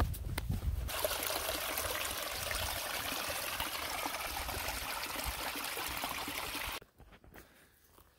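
Small, shallow mountain stream trickling steadily through plants and over a fallen log. The water sound cuts off suddenly about seven seconds in.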